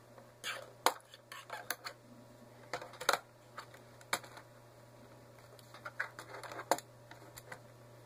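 Plastic bottom access cover of a Lenovo G770 laptop being pried off by hand: irregular sharp clicks and snaps of the cover's clips letting go, with light scraping of plastic.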